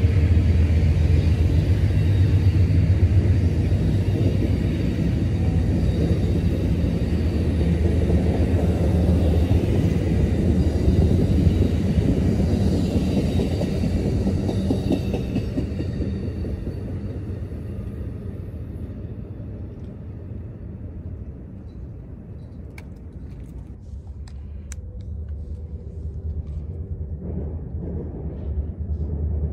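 Amtrak Superliner bilevel passenger cars rolling past at close range, a steady rumble of wheels on rail that fades away after the last car passes about halfway through.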